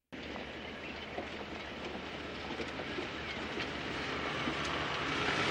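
Jeep Wrangler's engine running as it drives down a dirt road toward the listener, growing steadily louder as it approaches. Small crackles of tyres on the dirt run underneath.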